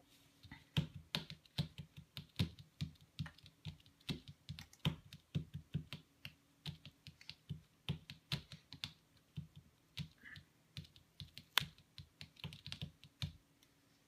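Typing on a computer keyboard: a long, irregular run of key clicks.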